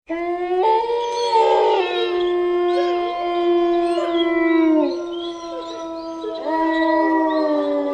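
Several canines howling together, long overlapping howls at different pitches that sag downward at their ends. It starts abruptly out of silence, and a fresh round of howls swells up about six and a half seconds in.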